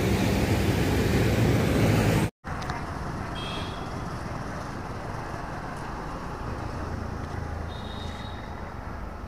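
Roadside traffic noise, loud for about two seconds, then cutting abruptly to a quieter, steady traffic rumble.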